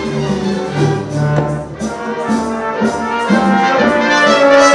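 Youth symphony orchestra playing live, strings with a full orchestral sound that swells louder toward the end.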